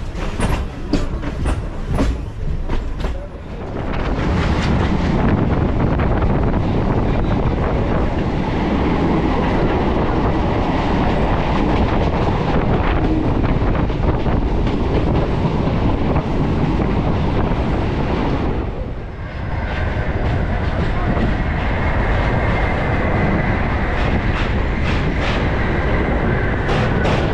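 Electric suburban local train (EMU) running, heard from aboard a coach. For the first few seconds the wheels clatter quickly over rail joints and points, then settle into a steady loud rumble. A short dip comes about two-thirds through, followed by a faint thin whine.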